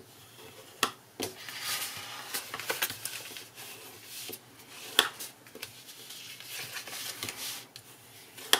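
Bone folder rubbing and scraping along the folds of card stock, burnishing the creases flat, with a few sharp taps of card and tool on the wooden tabletop, the sharpest about five seconds in.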